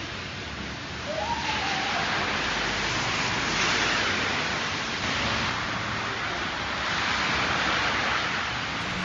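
Hailstorm: hailstones and rain coming down hard, a dense steady hiss of falling ice and water that grows louder about a second in.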